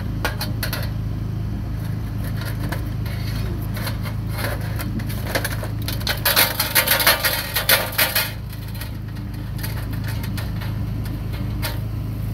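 Metal clinking and scraping of a wire grill basket being worked against a stainless-steel serving tray, with a burst of louder rattling about six to eight seconds in.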